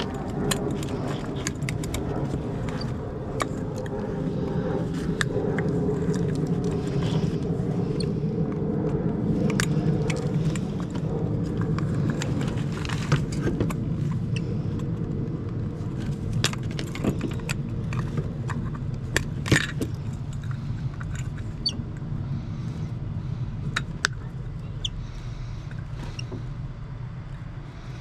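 Small metal scrap pieces clinking and clattering as they are handled and sorted, over a steady low hum.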